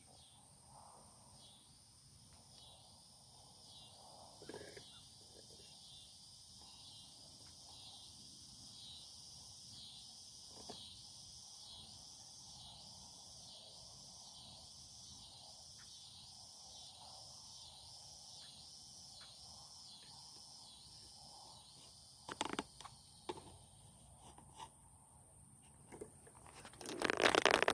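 Faint outdoor ambience of insects chirping in a high, even rhythm a little under once a second, over a steady high hiss. A few short knocks sound near the end.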